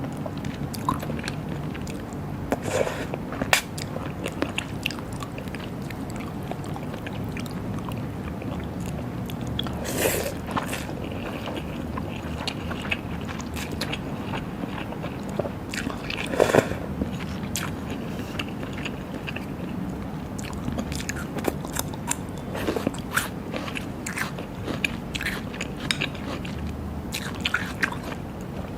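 Close-miked eating of raw seafood and Thai-style shrimp salad: chewing and biting with scattered short crunches and clicks, two louder crunches about ten and sixteen seconds in, over a steady low background hum.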